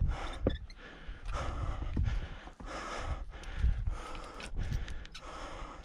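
A climber's heavy, panting breaths, about one a second, with a low wind rumble on the microphone.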